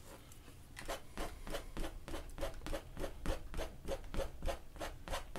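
Painting knife scraping across an oil-painted canvas in short, regular strokes, about three a second, starting about a second in: white highlight paint being laid onto the mountains wet-on-wet.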